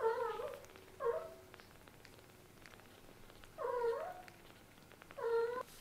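Very young kittens, their eyes just opened, mewing in four short, high cries: two in the first second and a half, then two more a second and a half apart near the end.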